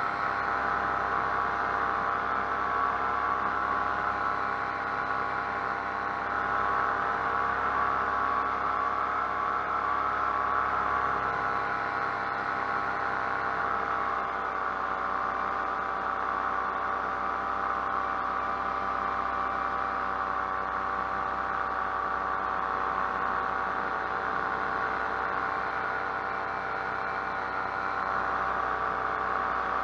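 Paramotor engine and propeller running steadily in flight, one constant engine note with only slight shifts in pitch.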